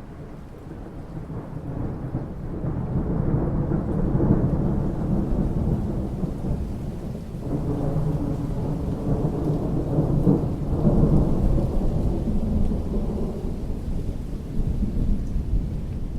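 Long rolling rumble of thunder from an approaching storm, building over the first few seconds, easing, then swelling again near the middle before slowly fading, over the patter of light rain.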